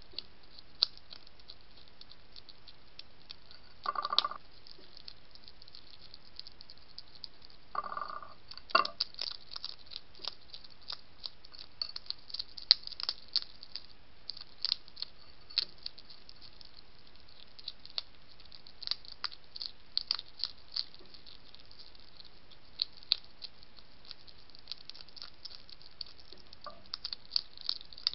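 European hedgehog chewing food from a plate: a run of rapid, irregular crunchy clicks. Two short squeaks come about 4 and 8 seconds in.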